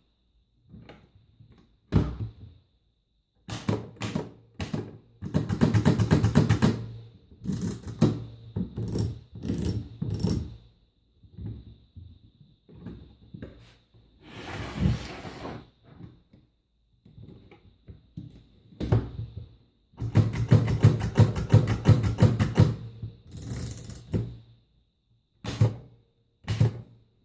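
Erika folding portable manual typewriter being typed on: scattered single keystrokes and two fast runs of clacking keys, with one longer, noisier sound about halfway through.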